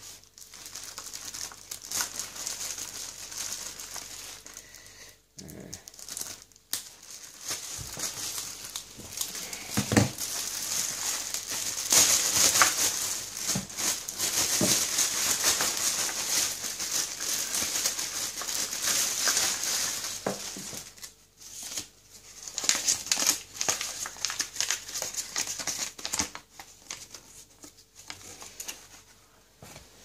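Clear plastic packaging of a replacement washing-machine heater element being crinkled and pulled open by gloved hands: irregular rustling and crackling, loudest in the middle, with a few short knocks.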